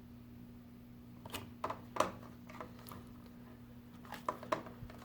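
Scattered light clicks and taps of the plastic packaging and RAM modules being opened and handled, over a faint steady low hum.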